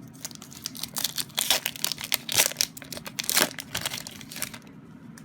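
Foil wrapper of a Pokémon TCG booster pack crinkling and tearing as it is opened, a rapid run of crackles that dies down about four and a half seconds in.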